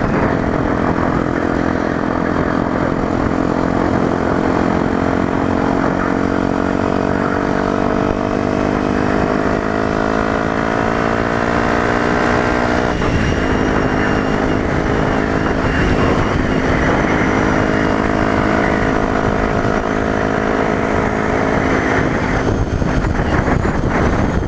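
Yamaha WR125X supermoto's single-cylinder four-stroke engine under way, heard from the rider's helmet over steady wind rush. The engine note climbs slowly for several seconds, drops sharply about halfway through, then holds fairly level.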